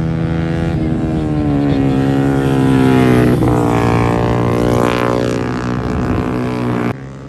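Racing motorcycle engines running at high revs, one passing close about five seconds in with a sweeping change in pitch. The sound cuts off abruptly near the end.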